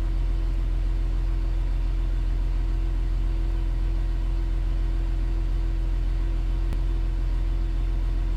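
Hercules Trackmobile's diesel engine idling steadily, heard from inside the cab as a low, even rumble with a constant hum over it. One faint click comes near the end.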